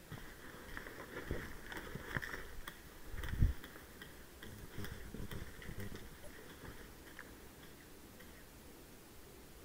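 Faint scattered clicks and rustling from a person moving over concrete rubble, with one low thump about three and a half seconds in.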